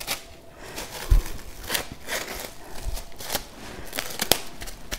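Plastic cling wrap crinkling in short, irregular crackles as it is wrapped and smoothed down by a gloved hand, with a soft thump about a second in and a sharp click near the end.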